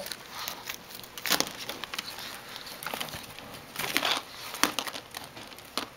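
Ribbed plastic tube crinkling and rustling as a dog pushes and noses against it, in irregular sharp scrapes and crackles, a few of them louder.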